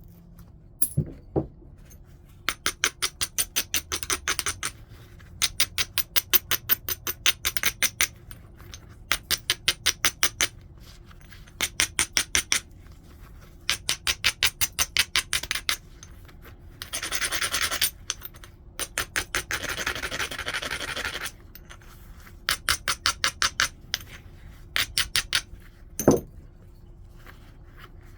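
Stone-on-flint edge abrading during flintknapping: repeated bursts of quick scraping strokes, about eight to ten sharp ticks a second, broken by a few seconds of continuous grinding in the middle. Near the end comes a single hard knock.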